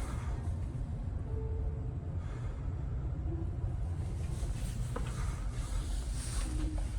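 Steady low rumble of a running vehicle, with a single sharp click about five seconds in and a few faint short tones.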